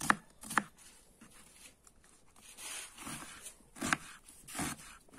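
Kitchen knife slicing through an onion onto a wooden cutting board: two crisp cuts at the start, a quieter stretch with a soft rustle, then two more cuts near the end.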